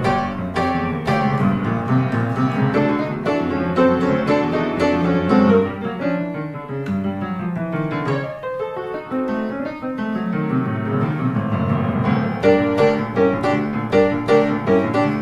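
Background piano music with a busy melody, softening for a few seconds in the middle, then picking up with quick repeated chords near the end.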